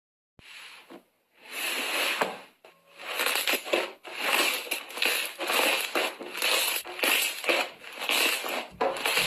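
Slime being squeezed and pressed by hand: a run of squishing, crackly squeezes, roughly one a second, the first one longer.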